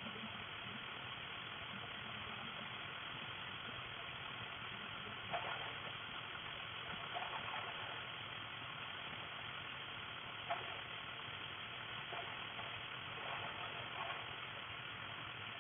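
Dental ultrasonic scaler and suction running steadily during tartar removal, an even hum and hiss, with a few short clicks and taps of the instrument on the teeth.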